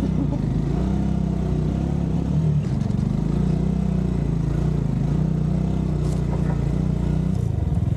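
Jettor Snake 250 motorcycle engine running under throttle, its pitch rising and falling as the rider works it over rough ground, with a couple of light knocks toward the end.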